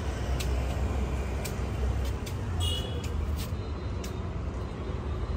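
Street ambience: a steady low rumble of road traffic, with a few light clicks scattered through it.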